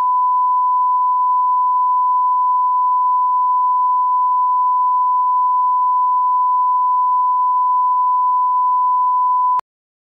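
Broadcast line-up reference tone played with colour bars: one steady, loud pure tone that cuts off suddenly near the end.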